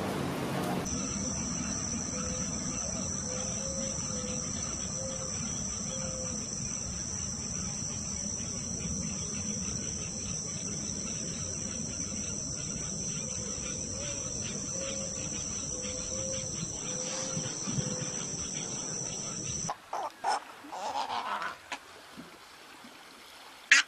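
Insects singing in a steady, high-pitched drone, with a soft low note repeated several times in two runs. The drone cuts off about 20 seconds in, followed by a few short sounds and a sharp click at the very end.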